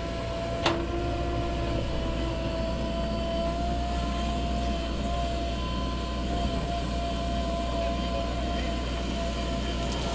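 Backhoe loader's diesel engine running steadily, a deep rumble with a steady whine over it, and a single click about a second in.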